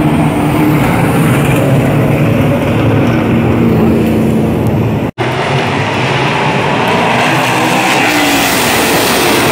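Stock-car V8 engines of a NASCAR Pinty's Series field running past at the track, a low, dense drone at first. After a sudden brief dropout about halfway through, the sound comes back louder and brighter as the pack accelerates past for a green-white-checker restart.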